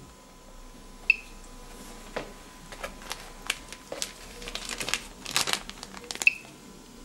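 Homemade Geiger counter with an SBM-20 tube giving two short, sharp high beeps about five seconds apart, each a single count at background radiation level. Irregular faint crinkling and rustling comes in between.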